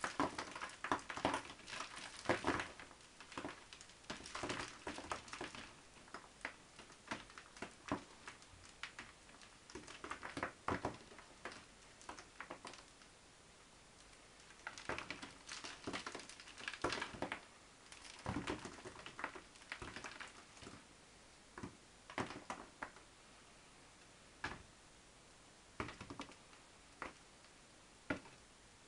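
Hands pulling old potting medium off an orchid's root ball, the bark and compost crackling and rustling as it crumbles and drops onto a wooden table. The crackling comes in irregular bursts with pauses between them, thinning to scattered clicks near the end.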